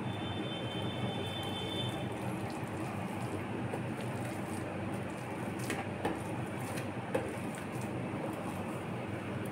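Metal potato masher crushing boiled potatoes on a steel plate, with a couple of light clicks of the masher against the plate about six and seven seconds in, over steady background noise.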